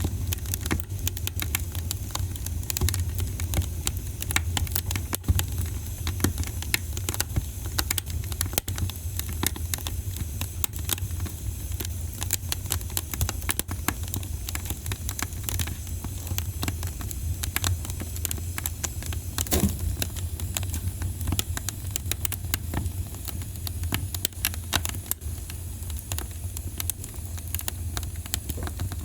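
Wood fire crackling in a fireplace: frequent small irregular pops and snaps over a steady low rumble of the burning fire, with an occasional louder snap.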